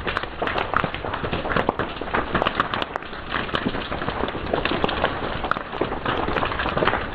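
Fire crackling steadily, with many sharp irregular pops and snaps over a soft hiss.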